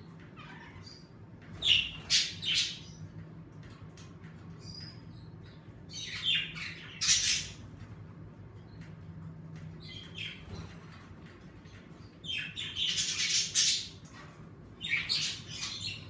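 Pet budgerigars chirping and squawking in four short bursts a few seconds apart, over a low steady hum.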